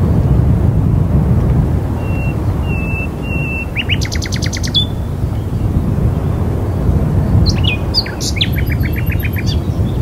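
Steady low wind noise, with small birds chirping over it: a few short whistled notes a couple of seconds in, a fast trill around four seconds, and more chirps and another fast trill near the end.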